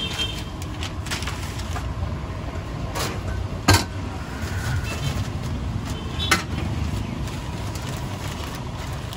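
Steel pan of a balance scale clanking as the vendor lifts it, tips out the vadas and sets it back: one sharp metallic knock a little under four seconds in and a lighter one a few seconds later, over a steady low background rumble.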